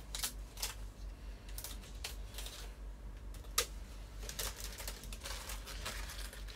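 Spring greens being torn and shredded by hand: irregular crisp leaf rustling and stems snapping, with one sharper snap about three and a half seconds in.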